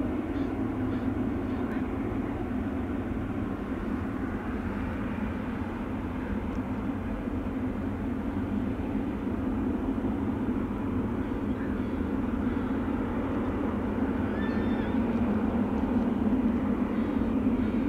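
Boeing 777-300ER's GE90-115B jet engines running at taxi power: a steady low jet hum that gets a little louder in the last few seconds.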